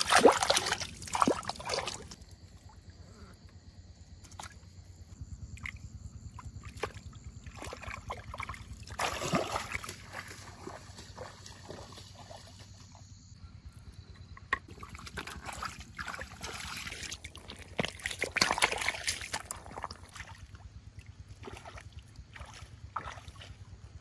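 Water sloshing and splashing in three short bouts, with scattered small clicks and knocks between them.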